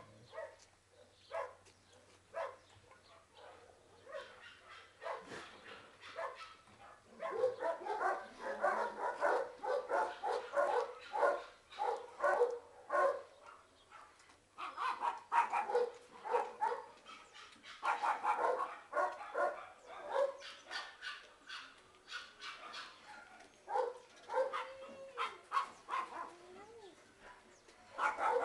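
Dogs barking in quick runs of short barks. The barking is sparse at first and grows dense about a quarter of the way in, with lulls between the runs.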